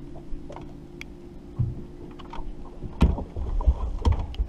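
Hollow thumps and sharp clicks of a large dog's paws and claws moving about on a fibreglass bass boat's front deck, over a steady low hum that stops about three seconds in.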